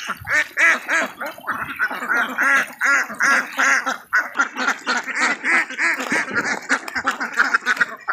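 Large flock of domestic ducks quacking, many calls overlapping almost without a break.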